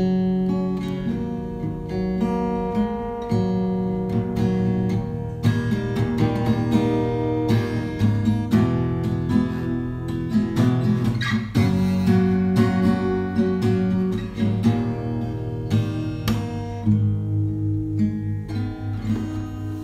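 Acoustic guitar music, strummed and plucked, playing steadily.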